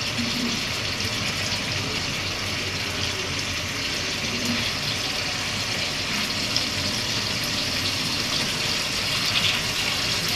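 Whole koi fish (climbing perch) frying in hot oil in a pan, a steady, even sizzle.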